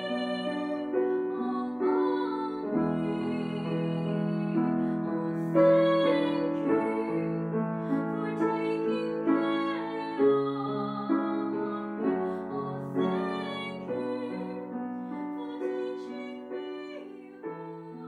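Slow piano music with long held chords, gradually fading near the end.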